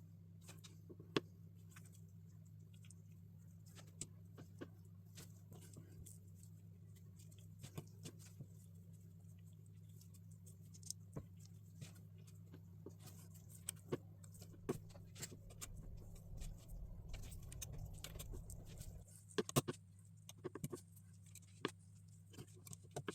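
Small plastic LEGO bricks being handled and pressed together: irregular light clicks and taps, busier in the second half, over a steady low hum.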